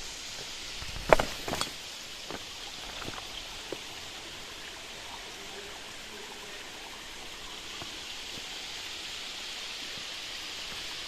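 Steady rush of water from a small waterfall. Two sharp knocks come about a second in, followed by a few faint ticks.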